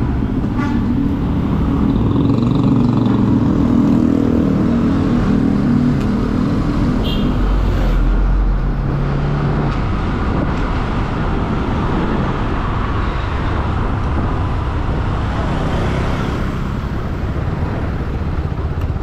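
Motorcycle engine running while the bike rides along, with wind rushing over the microphone. The engine note is strongest in the first few seconds, then lower and steadier as the bike rolls on.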